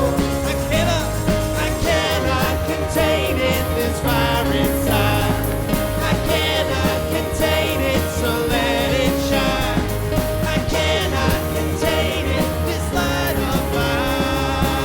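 Live contemporary worship music: a band playing a song, with a vocal or lead melody over a steady bass.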